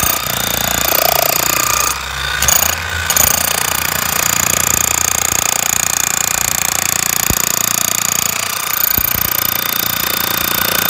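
Makita electric demolition hammer running continuously, its chisel bit hammering into rocky, compacted soil, with a brief break about two seconds in.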